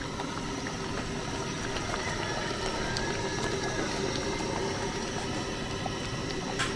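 A large pot of tomato-based croaker fish stew boiling on the burner: a steady bubbling hiss.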